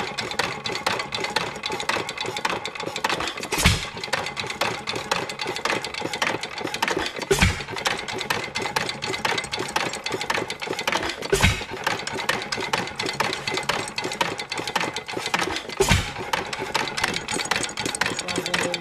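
1920s 2-horsepower Headless Witte hit-and-miss engine running: it fires with a loud bang four times, about every four seconds, and coasts on its flywheels between fires while its valve gear and latch-out governor keep up a fast, steady clicking.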